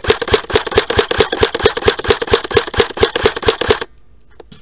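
Airsoft gun firing a fast, even string of shots, about five a second, which stops about four seconds in; a few faint clicks follow.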